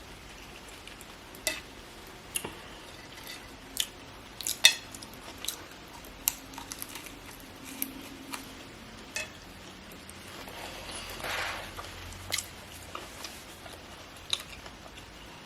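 Close-miked eating: a person chewing crunchy food (toasted BLT sandwich with crispy bacon, or Cheetos), with scattered sharp clicks and crunches and light clinks. About eleven seconds in there is a softer rustling noise lasting about a second.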